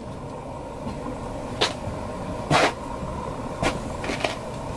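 Steady low hum with four sharp knocks roughly a second apart; the second knock is the loudest.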